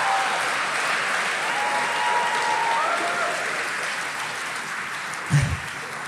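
Live comedy audience applauding, with a few short whoops, the applause slowly fading.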